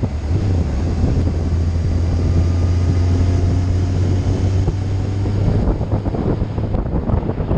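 Vehicle engine running at a steady speed, a low hum that fades after about five seconds, under heavy wind buffeting on the microphone.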